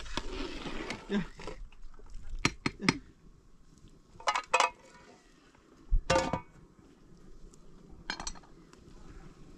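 Dishes and utensils clinking and knocking: short clatters in small groups, the loudest about six seconds in.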